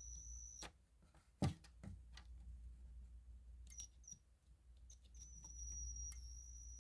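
A thin, faint, high-pitched electronic whine of a fire alarm strobe's charging circuit. It is heard briefly at the start, drops out, and comes back from about five seconds in. Scattered light clicks of the devices being handled run through it, with one sharper knock about a second and a half in.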